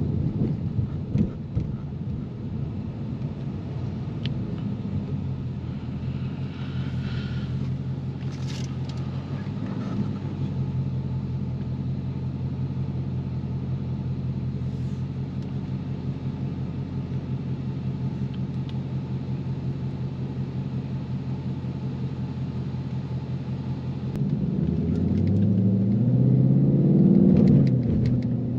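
Ford Mustang GT's 5.0-litre V8 heard from inside the cabin, droning steadily at cruise along with road noise. Near the end it gets louder and rises in pitch as the car accelerates, then drops back as it shifts up.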